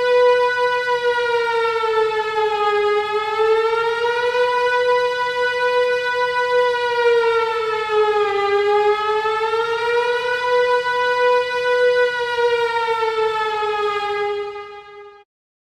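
Siren tone of an Emergency Alert System-style alarm: one loud, steady wail near 500 Hz, rich in overtones, that sags slightly in pitch twice and rises back, then cuts off suddenly near the end.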